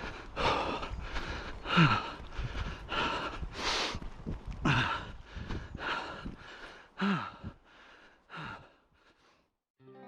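A runner gasping hard for breath after a hilly run, with heavy breaths roughly every second. Some breaths carry a voiced, falling sigh. The breathing tails off near the end.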